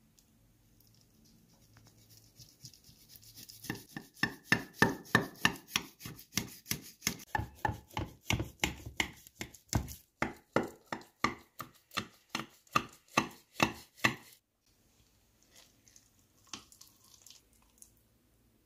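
Kitchen knife cutting through a baked cheese-topped chicken and rice casserole in a ceramic dish: a fast run of sharp cutting strokes, about three or four a second, that starts a few seconds in and stops abruptly about three-quarters of the way through. A few faint scrapes follow as a piece is lifted out.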